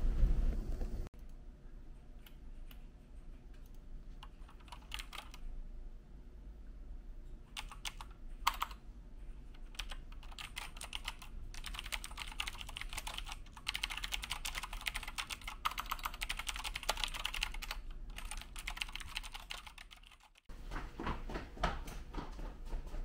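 Typing on a computer keyboard: irregular runs of quick key clicks, thickest in the middle stretch.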